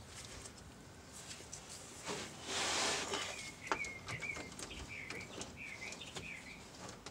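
A short rustling hiss and a few light metallic clicks as the rear differential's ring gear and parts are turned by hand. Then a bird chirps several times in a row, in short warbling notes.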